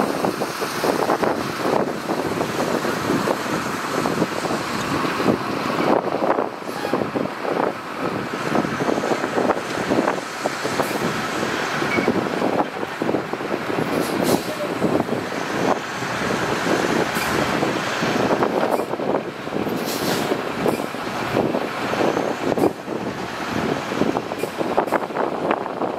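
Heavy diesel earthmoving machinery running under load, with irregular knocking and clatter mixed into the engine noise.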